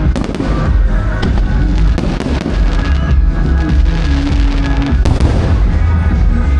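Fireworks bursting and crackling over loud show music with a heavy bass, with a sharp bang about five seconds in.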